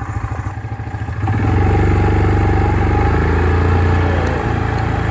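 Dirt bike engine running with an even putter, then throttle opened about a second in, running louder and steady for about three seconds before easing off a little.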